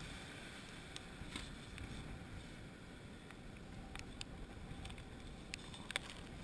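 Faint, steady low rumble of wind on the microphone and surf, with scattered soft clicks and rustles from hands handling the fishing rig and hook.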